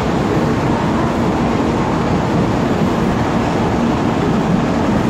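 Shinkansen train moving past the platform: a steady rumble of wheels and running gear with a faint low hum.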